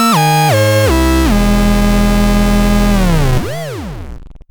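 Synthesizer playing a single buzzy, overtone-rich tone that steps down in pitch four times in quick succession, then holds a low note. About three and a half seconds in, a quick swoop up and back down in pitch, then it fades out.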